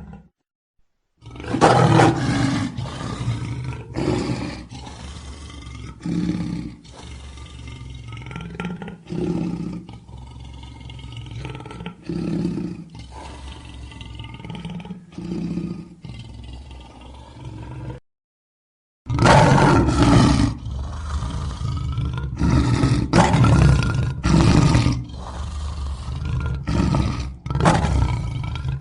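Lion roaring in two bouts separated by a brief silence about 18 seconds in. The first bout opens with a loud roar and trails off into shorter calls about every three seconds. The second bout is louder, with calls coming about once a second.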